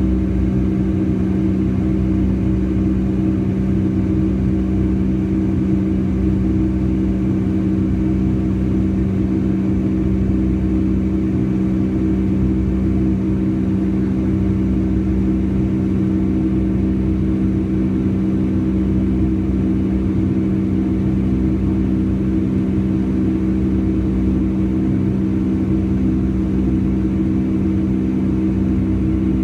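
Boeing 757-200 jet engines running steadily, heard inside the passenger cabin as a loud, even drone with a low hum and rumble.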